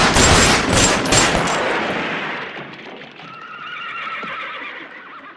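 A rapid volley of gunshots, several in quick succession, echoing as it fades. About three seconds in, a horse whinnies.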